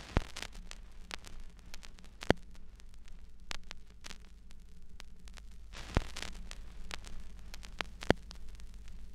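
Crackling static: scattered irregular clicks and pops, a few of them louder, over a steady low hum.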